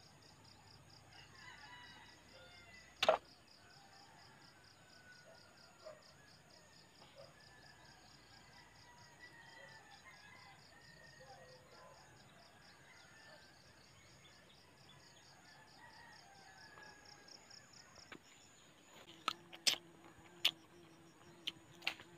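Insect chorus: a steady, rapidly pulsing high chirring that stops about 18 seconds in, with faint bird calls. A single sharp click about three seconds in, and a run of sharp clicks near the end.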